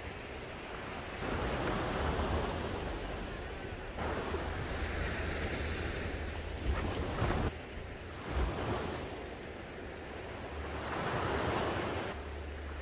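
Sea surf breaking and washing up a sandy beach, swelling and easing every few seconds, with wind rumbling on the microphone.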